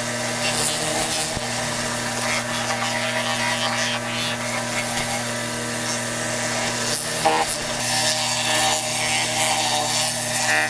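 Pressure washer running steadily with a constant hum, its water jet hissing as it blasts the patio paving.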